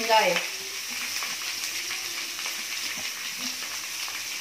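Chopped onions dropped into hot oil in a kadai: a brief louder burst right at the start as they land, then steady sizzling and frying.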